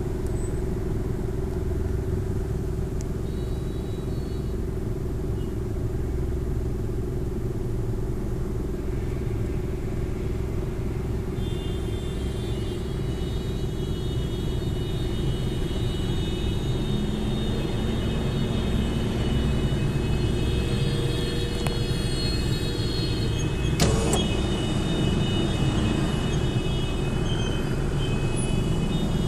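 Rumble of jammed car traffic idling and creeping through a junction. From about twelve seconds in, several car horns blare together and hold on, the protest honking of drivers whose way is blocked by cars stopped in the yellow box. A single sharp knock sounds near the end.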